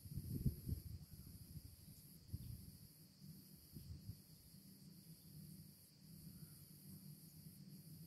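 Faint, steady high-pitched chirring of insects, breaking off briefly every second or so. A low rumble of wind on the microphone comes in the first second.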